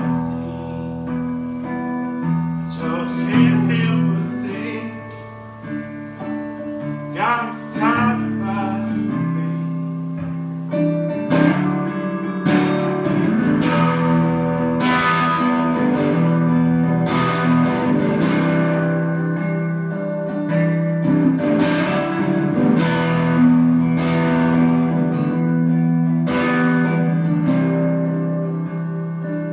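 Acoustic guitar played live: ringing chords and picked notes at first, then strummed chords about once a second from around eleven seconds in.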